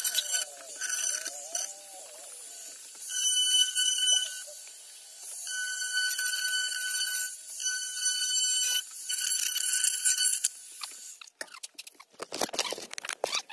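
Electric wood router running with a high, steady whine in several bursts of a second or two, then rough, crackly scraping noise near the end.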